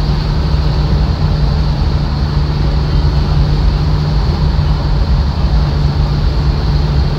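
Steady driving noise inside a moving car's cabin: engine and road noise with a constant low drone.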